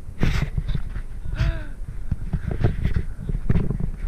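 Mountain bike riding over dirt jumps, heard from a camera on the rider: wind buffeting the microphone, tyres on dirt and the bike rattling and knocking over the bumps. A short pitched squeak rises and falls about a second and a half in.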